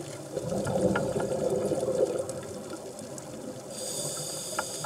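Scuba diver's exhaled bubbles gurgling out of the regulator, heard underwater, in one burst lasting about two seconds near the start.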